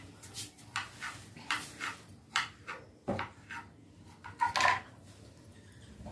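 Heavy stone pestle knocking and scraping in a stone mortar as roasted spices are pounded to powder: about a dozen short, irregular strokes, the loudest about three-quarters of the way in.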